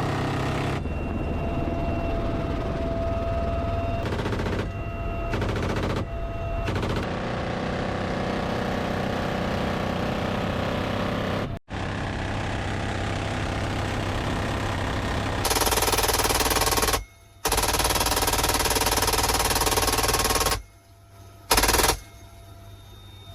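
M134 Minigun firing long continuous bursts, a dense unbroken rattle, in several clips spliced together so the sound changes abruptly at each cut and drops to a quieter stretch near the end.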